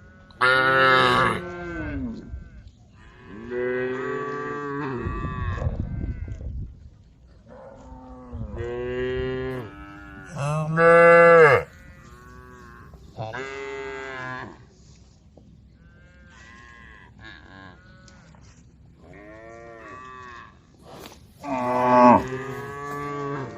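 Cattle mooing again and again, about eight long calls from several cows, the loudest near the start, about halfway through and near the end. A brief low rumble sits under one call around a quarter of the way in.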